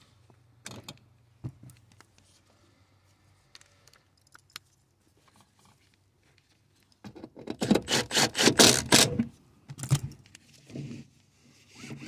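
Seatbelt webbing being pulled through its retractor, with the metal latch plate rattling. After a few faint clicks, a loud run of rapid scraping and clicking starts about seven seconds in and lasts about three seconds, followed by a few shorter bursts.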